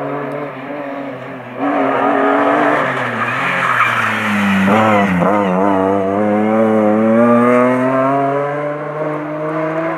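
BMW 3 Series rally car's engine coming hard through a tight bend: the engine note gets loud about two seconds in, dips and wavers about halfway through as the car slows for the corner, then rises steadily in pitch as it accelerates away.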